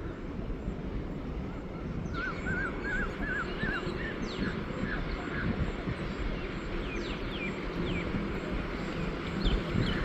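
Small birds calling over a steady low rumble. A quick run of about six warbling notes comes about two seconds in, then scattered short, falling chirps.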